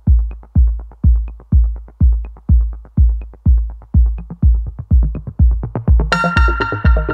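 Electronic dance music with a steady kick drum, about two beats a second, and lighter hi-hat ticks between. A bright synth melody comes in about six seconds in.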